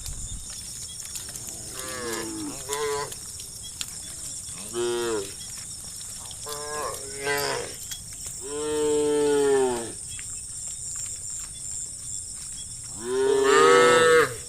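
Several cows mooing in turn: a few short moos, a long one about nine seconds in, and the loudest, a long moo near the end.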